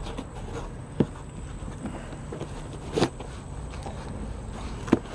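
Three sharp knocks and clunks, a couple of seconds apart, as 3D printer parts are handled and set down during unboxing, over a steady low background hum.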